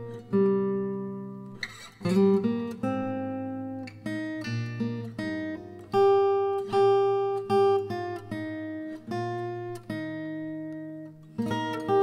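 Background music on acoustic guitar: a melody of plucked notes that ring and fade one after another.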